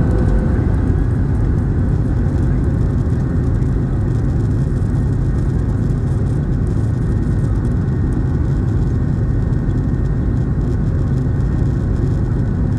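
Steady low rumble inside the cabin of a Boeing 737-800 as it taxis, its CFM56 jet engines running at low thrust.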